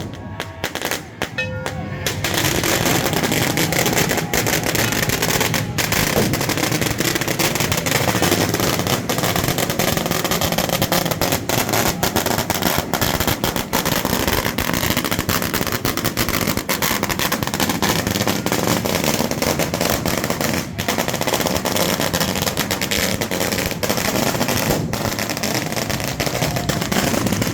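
Firecrackers going off in a dense, continuous crackle of sharp irregular bangs, starting about two seconds in.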